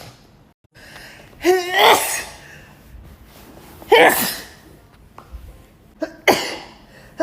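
A woman sneezing in a fit: three loud sneezes about two seconds apart. The first starts with a wavering, voiced intake of breath.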